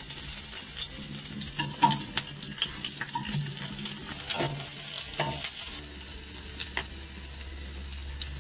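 Hot oil in a wok sizzling as green chillies, spice seeds and sliced onions fry, with many scattered sharp pops and crackles, the loudest about two seconds in.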